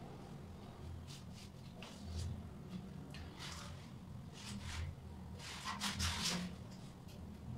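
Short rustling and rubbing noises from hands moving through hair and from body movement close to the phone, the loudest cluster about six seconds in, over a low steady hum.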